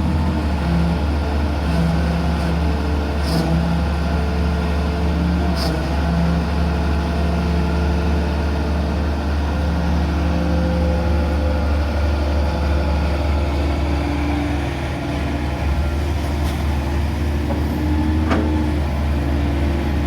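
Hydraulic excavator's diesel engine running steadily under working load, its note swelling and easing every second or two as the hydraulics work. A few short clicks come through on top, near the start and again near the end.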